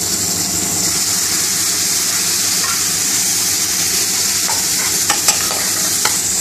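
Onion, pepper and spice curry base with tomato paste sizzling in hot oil in a pan while it is stirred, with a few sharp clicks of the utensil against the pan about five to six seconds in.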